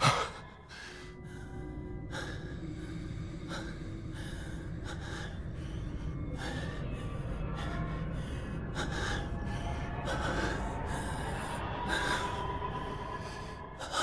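A man's voice panting hard in an anime dub: repeated heavy breaths and gasps, about one a second, with a sharp loud gasp at the start.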